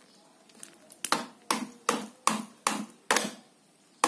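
A stone knocked repeatedly against a child's plastic bicycle, six even sharp knocks about two and a half a second, starting about a second in and stopping after about three seconds: a toddler hammering at the bike in pretend repair.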